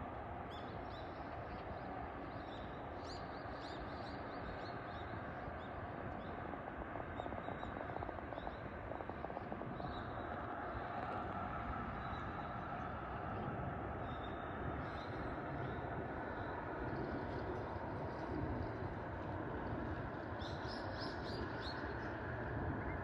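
Steady rush of expressway traffic, with small birds chirping in short runs near the start, past the middle and near the end.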